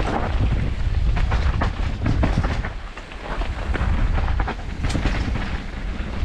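Wind buffeting the microphone: a loud low rumble, with many scattered clicks and knocks. It dips briefly about three seconds in.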